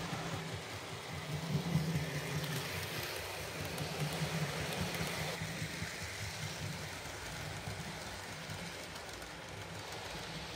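OO gauge model train running on the layout, a steady rough rumble of its wheels and motor on the track, a little louder in the first few seconds and easing off towards the end.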